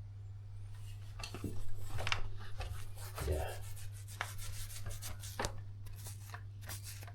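Scraping and rubbing with scattered light clicks and knocks, starting about a second in, over a steady low hum.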